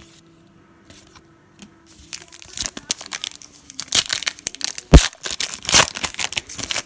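A trading-card pack wrapper crinkling and being torn open by hand: a dense run of sharp crackles that starts about two seconds in, is loudest about five seconds in, and stops near the end.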